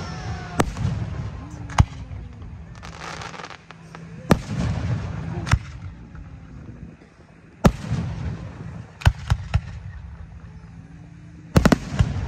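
Aerial firework shells bursting in a display: sharp bangs every second or two, a noisy crackle about three seconds in, and a quick cluster of bangs near the end.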